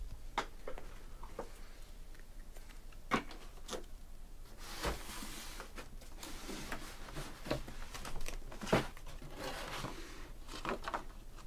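Light handling noises: scattered sharp clicks and taps, with a few seconds of rustling crinkle about halfway through.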